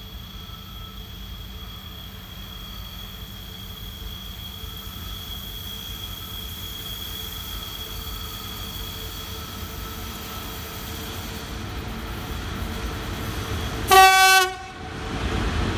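VL11 electric freight locomotive approaching with its train, the rumble growing steadily louder. Near the end it gives one short, loud horn blast, then its rumble swells as it runs close past.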